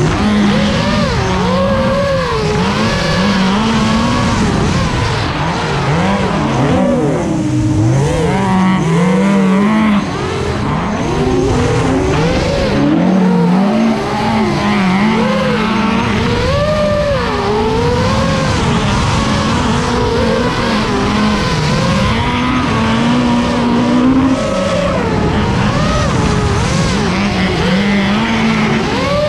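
Mk II Ford Escort race cars' engines running hard on track, the pitch climbing, holding and dropping back again and again as the drivers work through the gears and corners.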